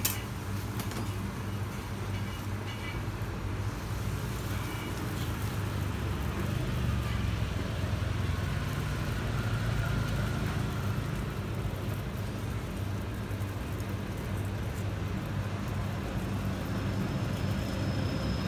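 Steady low rumble and hum of urban street background noise, with an even hiss above it and a single click right at the start.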